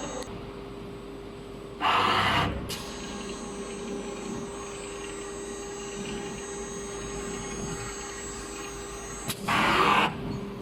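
Polyurethane gasket dispensing machine running through an automatic dispensing cycle: a steady motor hum with a constant tone, broken by two short, loud hisses, about two seconds in and again near the end.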